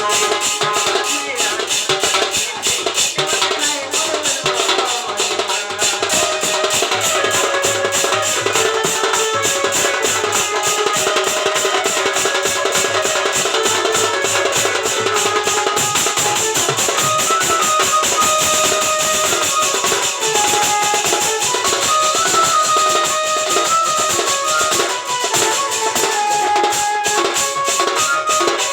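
Instrumental interlude of Odia folk music: a fast, steady drum and cymbal rhythm under a melody line that steps up and down.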